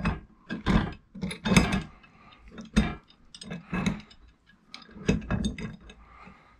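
Metal side-foot bracket clinking and knocking as it is handled and set onto rubber anti-vibration mounts and their threaded studs: an irregular string of sharp metallic clicks and clunks.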